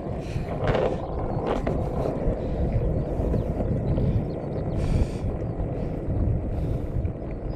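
Longboard wheels rolling over asphalt, a steady rumbling noise, with wind buffeting the microphone.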